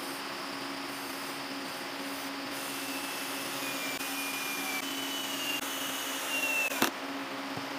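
Cordless drill boring into a wooden board. Its thin whine sags a little in pitch under load through the second half, over a steady hum, and a sharp click near the end is the loudest moment.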